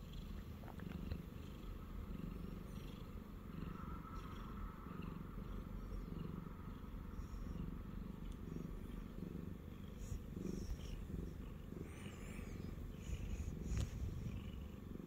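Siamese cat purring steadily and close up, the purr swelling and easing with each breath.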